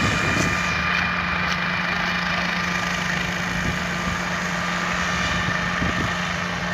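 An engine running steadily at idle, a constant low hum with a faint higher whine.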